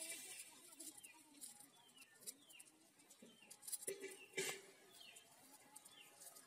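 Faint bird calls: short chirps that fall in pitch, repeating every second or so. About four and a half seconds in there is a brief louder noise.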